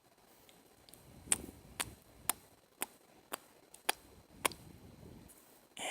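Mouth clicks made close to the microphone: about seven sharp, wet clicks, roughly two a second, starting about a second in.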